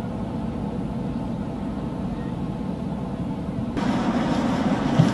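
Football match field-side ambience: steady outdoor noise without clear voices. About three and a half seconds in it switches abruptly to a louder, brighter ambience, and a single thump comes near the end.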